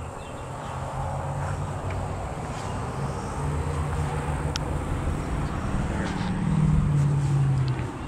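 Low electrical buzz of the Carrier WeatherMaker gas packs' control transformers, growing louder for a while about six seconds in.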